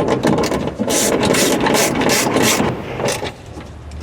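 Close handling noise of seat belt anchor hardware being fitted: rubbing and scraping, with a run of about five short rasping strokes in the middle, then quieter.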